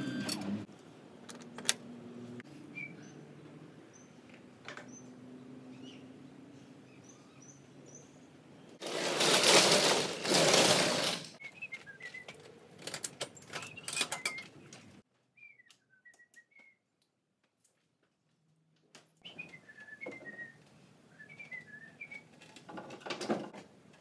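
Small birds chirping in short gliding calls, with a low steady hum under the first part and one loud rushing noise lasting about two seconds near the middle.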